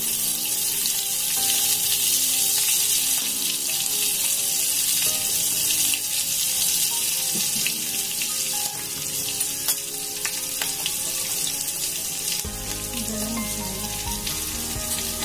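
Chopped green chillies and whole spices frying in hot mustard oil in a metal kadhai: a steady crackling sizzle of bubbling oil.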